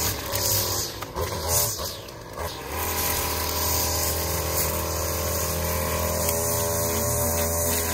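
Gas-powered string trimmer engine running. It rises and falls for the first few seconds, then settles into a steady idle.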